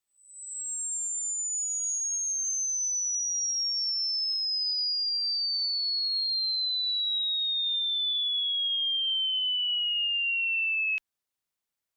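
Pure sine test tone of a hearing-test frequency sweep, gliding steadily down in pitch from a very high whistle to a lower one, then cutting off abruptly about eleven seconds in.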